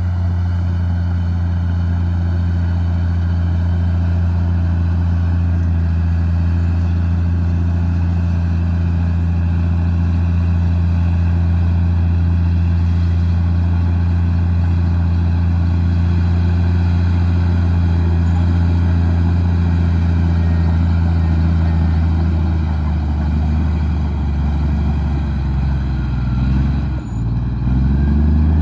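Komatsu D58E bulldozer's diesel engine running steadily under load. Near the end its pitch dips briefly and then climbs again.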